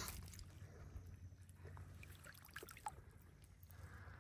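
Faint water stirring and small drips as a hand releases a small Murray cod into the water, fading to near silence with a few faint ticks.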